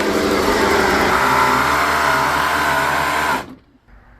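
Electric motor whirring with a whine that drifts slightly in pitch, cutting off abruptly about three seconds in. It is most likely the e-bike's 500 W geared hub motor spinning up under throttle.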